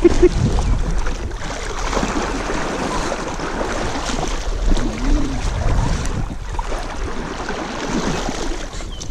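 Water sloshing around a kayak on a river with wind on the microphone, a steady noisy rush; about halfway through a short rising-and-falling whine sounds once.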